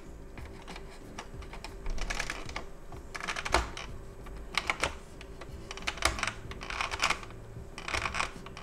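A small screwdriver tip scraping and clicking against the plastic connector and housing of a VW Golf 5 instrument cluster as the cable plug is worked into position. The sound comes as irregular bursts of small clicks and scrapes.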